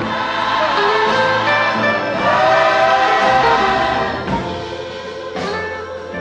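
Background music of a choir singing sustained, gospel-style notes. It swells about two seconds in, grows softer in the second half, and has a sharp hit near the end.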